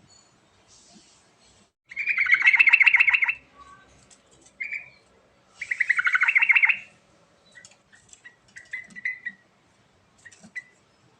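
Yellow-vented bulbul singing: two loud, bubbling phrases of rapid repeated notes that fall in pitch, about two seconds in and again about six seconds in, with short single chirps between and after them.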